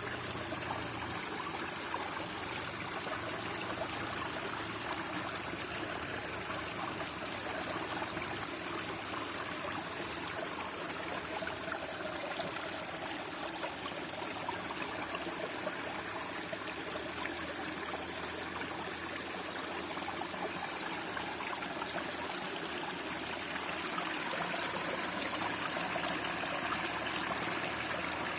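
Steady rush of flowing water, as of a stream or river running over rocks, getting a little louder near the end.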